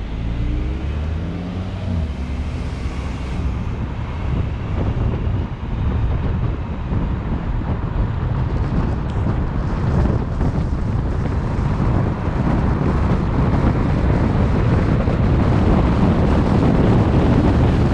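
A car driving off: engine tones climb in pitch for the first few seconds as it accelerates, then a steady rumble of road noise and wind buffeting the microphone, growing louder as the car picks up speed.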